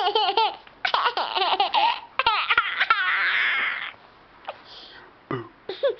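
Baby laughing in repeated bursts of high giggles, with a long breathy squeal about three seconds in, then quieter for the last two seconds.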